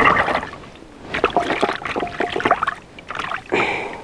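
Vegetables being handled in a basin of water: irregular sloshing and splashing with knocks against the bowl.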